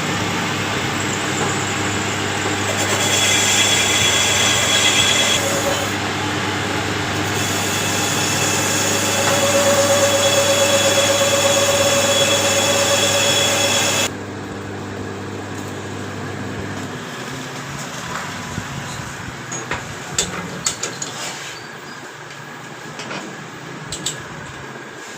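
A machine running steadily with a hiss and a whine, cutting off abruptly about halfway through; its low hum dies away a few seconds later, followed by scattered light knocks.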